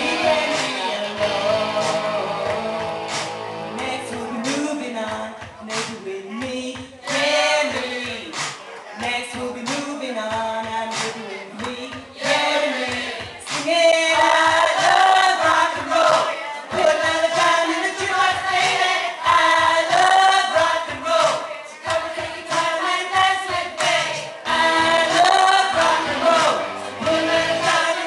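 A woman's voice singing a song over musical accompaniment.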